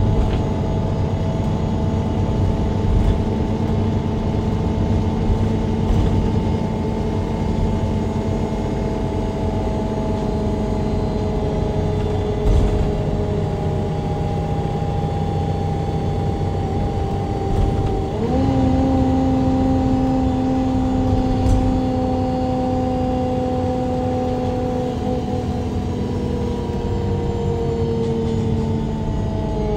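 MAN Lion's City G NG313 CNG articulated bus's gas engine and Voith automatic gearbox running under way, heard from directly above the engine: a steady drone with several whining tones that slowly fall in pitch, jump up about eighteen seconds in, then slowly fall again.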